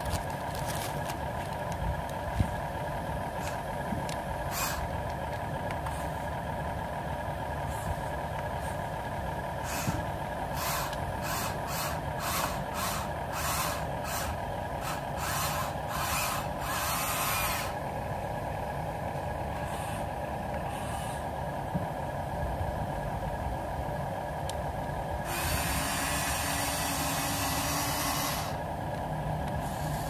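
Radio-controlled Huina 1593 toy excavator running, a steady electric hum with its motors whirring in short spells as the cab and boom move. There is a cluster of brief bursts about halfway through, and a longer spell of motor noise near the end.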